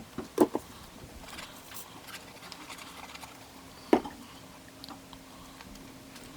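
Paper and small craft pieces being handled on a tabletop: light rustling and clicks, with two sharp knocks close together about half a second in and another about four seconds in.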